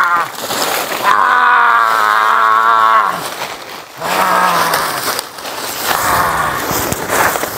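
A man wailing in long drawn-out cries, each held on one pitch and then dropping away, three times over.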